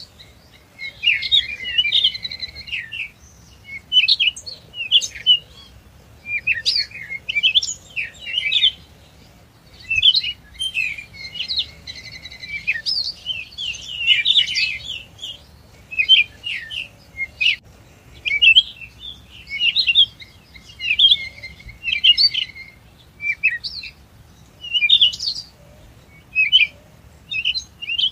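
Recorded bird chirps and twitters played from an electronic cat toy's speaker, in quick repeated phrases with short gaps, over a faint low hum.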